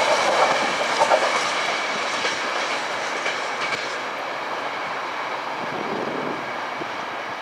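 The tail of a freight train of open MLA box wagons rolling away, wheels clattering over the rail joints with a few sharp knocks about a second in. The running noise fades steadily as the wagons recede.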